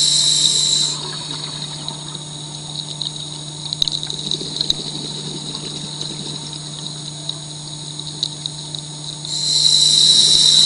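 Scuba diver's regulator exhaling underwater: a loud rush of bubbles at the start and again near the end, about ten seconds apart. Between breaths there is a steady low hum and scattered faint crackles.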